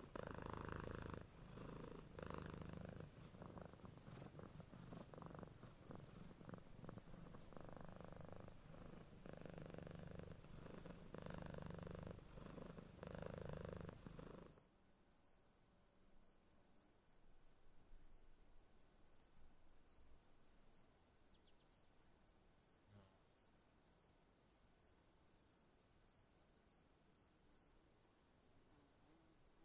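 A cat purring close by, swelling and fading with each breath, until it stops abruptly about halfway through; crickets chirp steadily in the background the whole time.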